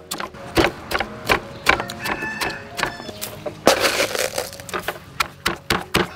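Stone pestle pounding green chilies in a stone mortar: repeated dull strikes and crushing, roughly two a second, with background music.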